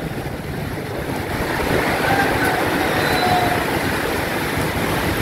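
Heavy rain falling steadily, an even hiss over a low rumble.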